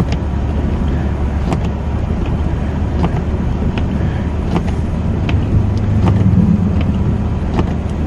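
Honda Odyssey minivan heard from inside the cabin while driving slowly on a snow-packed road: a steady low rumble of engine and tyres. Short sharp clicks come about once a second.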